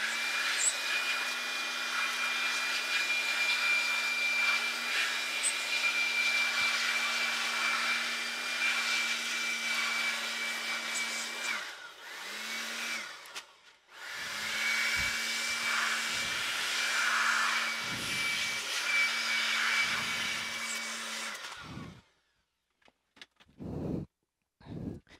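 Electric blower running with a steady whine, blowing on a liquid-damaged graphics card board to dry it. It cuts off about twelve seconds in, comes on briefly, then runs again from about fourteen seconds until near the end.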